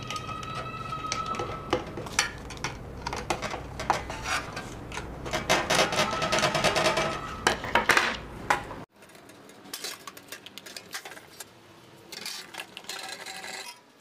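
Metal clinks and scraping as a screwdriver turns the screws that fasten a metal blade to a ceiling fan's motor housing. The sound drops suddenly about nine seconds in, and fainter clicks follow.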